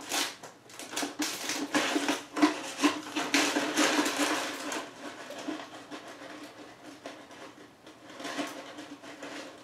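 Small hard plastic and metal objects clattering and rustling as they are handled on a workbench, busiest in the first half and then sparser, over a steady low hum.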